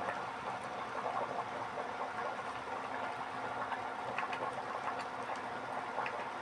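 A pot of tamarind gravy boiling on an induction cooktop: a steady bubbling hiss with occasional small pops, over a faint low hum.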